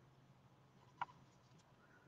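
Near silence: room tone, with one faint short click about a second in.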